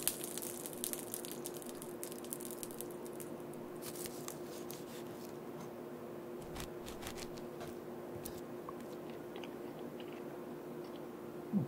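Fork and knife clicking and scraping against a ceramic plate as a seared steak is cut, then close-up chewing of the meat. A faint steady hum runs underneath.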